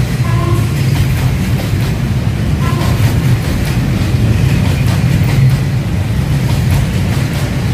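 Train running with a steady, loud low rumble, and a couple of brief faint tones, one near the start and one about three seconds in.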